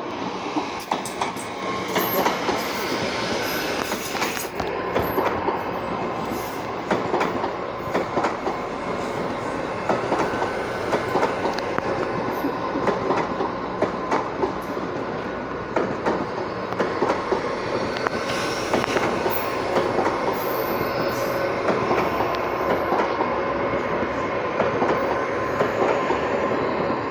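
GWR Hitachi Intercity Express Train passing close by on a curve: a rapid, irregular clicking of wheels over the track, with a faint steady wheel squeal running under it.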